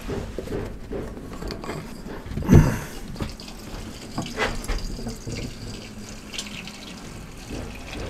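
Gasoline pouring from a plastic gas can into a motorcycle's fuel tank, a steady filling sound. A single thump about two and a half seconds in is the loudest moment.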